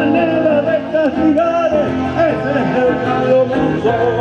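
Music: a voice singing a wavering melody over steady instrumental accompaniment.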